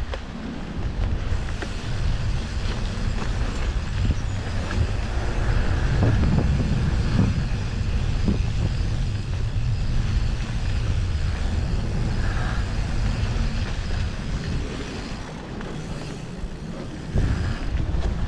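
Wind buffeting an action camera's microphone on a moving mountain bike, over a steady low rumble of tyres on the trail, with a few light knocks from the bike.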